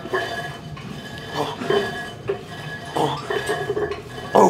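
Metal weight plates clinking and rattling on a Smith machine bar, several short irregular clanks with a loud one near the end.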